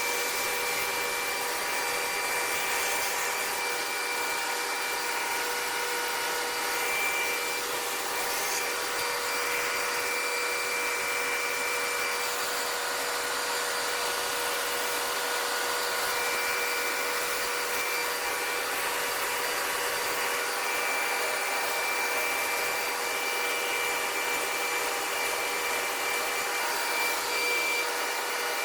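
Concrete mixer truck running steadily while its drum mixes a freshly loaded batch of concrete: an even whirring hiss with a few fixed whining tones, the highest of which drops out and comes back.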